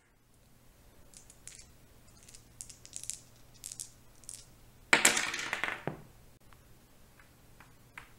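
Two plastic dice rattled in a closed hand with soft clicks, then thrown onto a Monopoly board about five seconds in, clattering and rolling for about a second. A few light taps follow.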